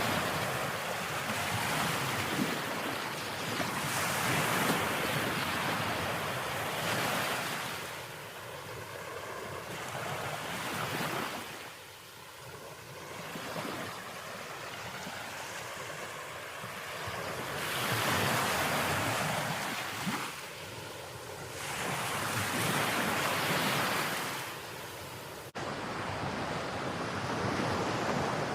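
Sea waves breaking and washing up a beach, the rushing hiss swelling and fading in several surges. Near the end the sound changes abruptly and turns duller.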